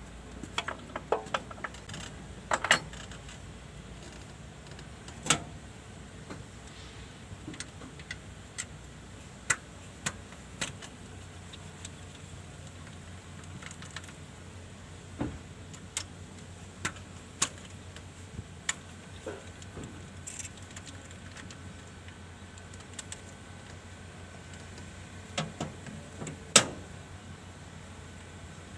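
Hand tools clinking and tapping against metal parts in irregular, separate strikes, with a steady low hum underneath.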